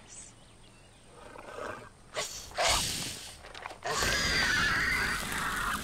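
Shrill screeches of a baby dragon (a TV sound effect), then about two seconds of hissing, rushing fire breath with a wavering shriek over it as the dragon breathes flame on the command "Dracarys".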